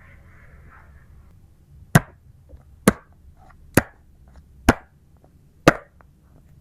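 Five sharp taps, one about every second, with a few fainter ticks between them and a soft rustle before the first.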